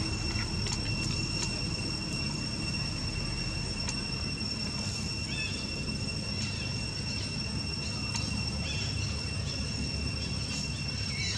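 Steady high insect drone, one unbroken tone, over a low rumble, with a few faint short chirps.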